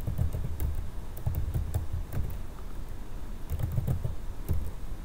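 Computer keyboard being typed on in short, irregular bursts of key clicks with dull low knocks, as a short command is entered.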